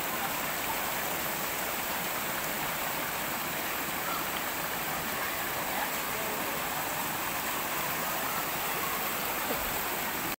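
Shallow mountain river rushing and splashing over and between large boulders, a steady even hiss of water that cuts off suddenly at the end.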